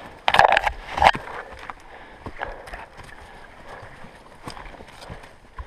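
Footsteps of a handler and a tracking dog on loose, stony ground through scrub: scattered knocks and clicks of stones and twigs, with two loud brushy scrapes about half a second and a second in.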